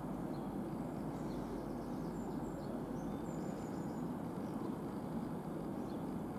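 Steady low rumble of outdoor background noise, with faint bird chirps above it.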